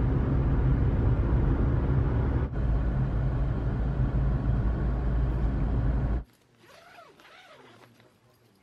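Car driving, heard inside the cabin: a steady low rumble of engine and road noise. It cuts off abruptly about six seconds in, leaving only faint quiet sounds.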